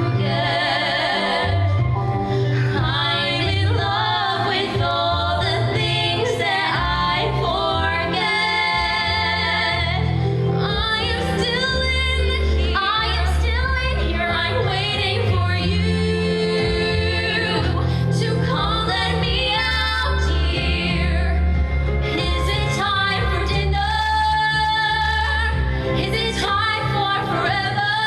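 Female voice singing a musical-theatre ballad with vibrato and long held notes over steady instrumental accompaniment.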